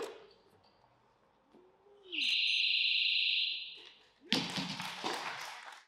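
A sharp knock as the barbell leaves the platform, then a steady electronic beep lasting about a second and a half, the referees' down signal. About four seconds in, a barbell loaded with rubber bumper plates is dropped onto the wooden platform and crashes and rattles for about a second and a half.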